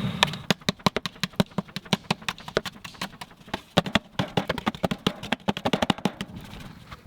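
Wood campfire crackling, with quick irregular sharp pops that thin out near the end.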